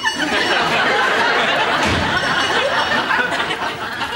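Studio audience laughing steadily for several seconds.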